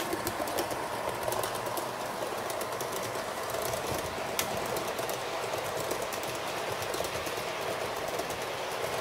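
HO scale model train running along the track: a steady whir with many small, irregular clicks of the wheels over the rail joints.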